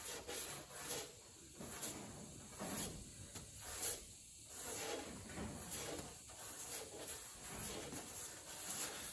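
Sanding block with fine 320-grit sandpaper rubbed back and forth by hand over the filled corner of a fiberglass trunk lid: faint, repeated scratchy strokes under light pressure, feathering the filler edges for primer.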